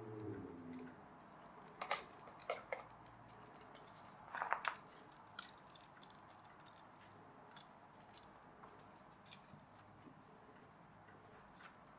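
Stiff printed card pieces of a pull-back toy plane kit being handled and pushed together: a few sharp clicks and taps, a quick cluster of them about four and a half seconds in, then only faint scattered ticks.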